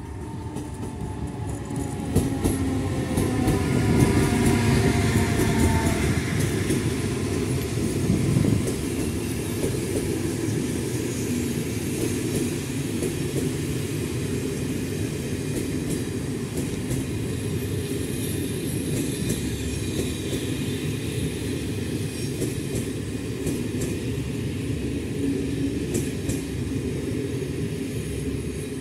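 ONCF electric locomotives and passenger coaches rolling slowly past. A whine falls in pitch over the first six seconds as the locomotive goes by, then a steady rumble of the coaches' wheels, with scattered clicks as they pass over the rail joints and points.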